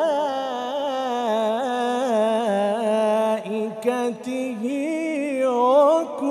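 A male reciter's solo voice chanting the Quran melodically, drawing out the end of "bi-llāh" in a long, wavering, ornamented note. After a short break a little past halfway, he sings "wa-malā'ikatihi" in a line that falls and rises again.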